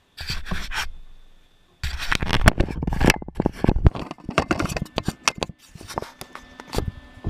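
Irregular knocks, clicks and scraping of shop pieces being handled and fitted together by hand, with a short pause about a second and a half in.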